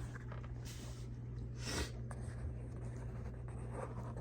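Two brief faint scrapes and a light click from small parts being handled on a workbench, over a steady low hum.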